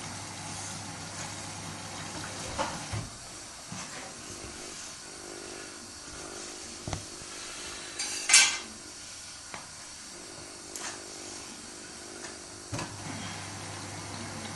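Samsung WW80J5555FWEU front-loading washing machine washing on its Delicates 40°C programme: the drum motor's low hum stops about three seconds in and starts again near the end, with scattered clicks and knocks from the drum and load in between and a brief louder rush of noise about eight seconds in.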